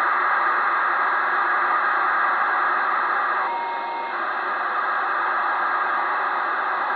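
FUNcube-1 satellite's BPSK data telemetry received on a 2 m transceiver in USB mode: a steady, loud buzzing hiss. About three and a half seconds in, it gives way for half a second to a steady tone.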